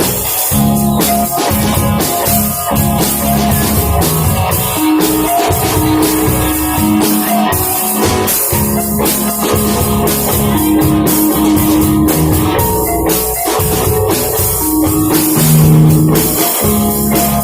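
Shoegaze rock band playing live: drum kit with cymbals washing over sustained guitar and bass notes, loud and dense.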